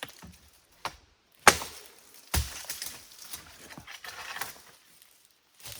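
A wooden stick striking a chaga growth on a tree trunk to knock it loose: four sharp knocks, the two loudest about a second and a half and two and a half seconds in, followed by a couple of seconds of rustling.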